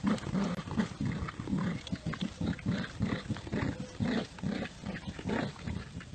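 Dogs growling in play during a tug-of-war over a toy: a continuous run of short, rough growls, a few each second.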